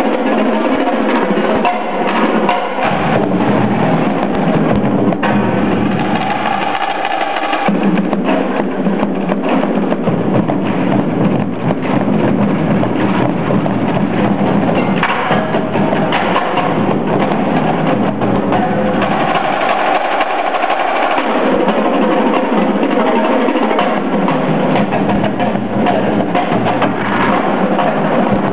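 Marching drumline playing together: snare drums, tenor drums and bass drums in a fast, continuous stream of stick strokes with no pauses.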